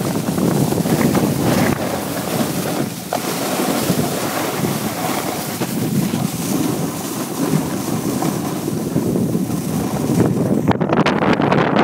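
Wind rushing over the microphone during a fast run down a ski slope, mixed with the hiss and scrape of edges sliding on packed snow. About three-quarters of the way through the hiss thins and the sound turns rougher and more broken.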